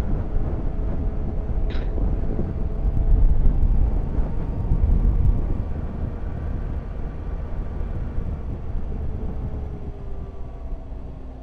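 Motorcycle riding along with heavy wind rush on the microphone over a steady engine hum; the engine note drops a little and the sound grows quieter over the second half as the bike slows.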